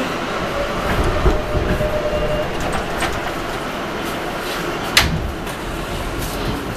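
Steady rumble inside an R160A-2 New York subway car as it runs on the rails, with a few sharp clicks and a louder knock about five seconds in.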